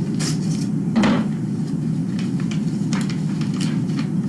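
Mail being handled on a table: paper and envelopes rustling, with short clicks and taps, the loudest about a second in, over a steady low background hum.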